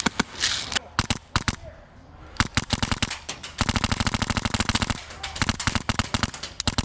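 Airsoft rifle firing long bursts of rapid full-auto, a fast train of sharp pops with a few scattered single shots near the start.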